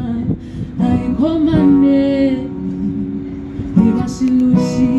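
Song: a woman's voice singing long held notes over acoustic guitar accompaniment.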